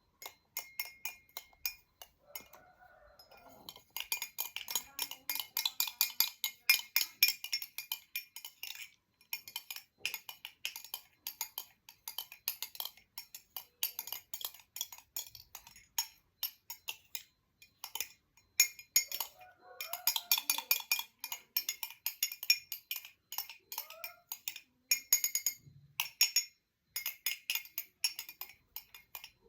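Metal spoon stirring in a glass, clinking quickly and repeatedly against the sides in several spells with short pauses between.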